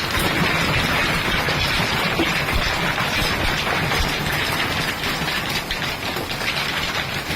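Hailstorm: hail and heavy rain pounding down in a dense, steady patter of many small impacts over a low rumble.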